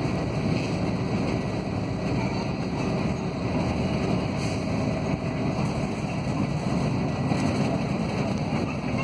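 Steady running noise of a moving city bus heard from inside the passenger cabin, an even low rumble with no distinct events.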